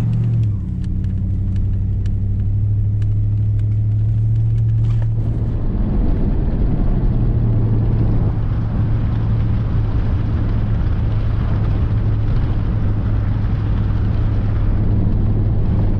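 Pickup truck driving on a dirt road, heard from inside the cab: a steady low engine drone, with light ticks and rattles for the first few seconds and tyre and road noise growing louder about five seconds in.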